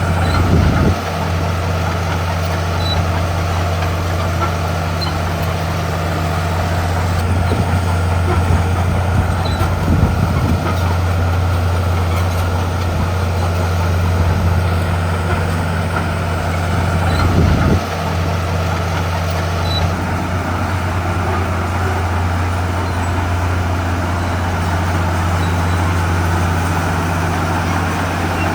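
Heavy diesel earthmoving machine engine running steadily under load, with a deep, even drone that swells briefly three times.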